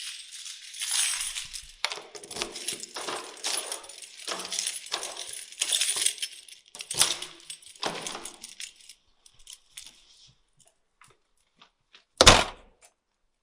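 A bunch of metal keys jingling in repeated shaken bursts for about nine seconds, then a few faint clinks, and one louder, short clatter near the end.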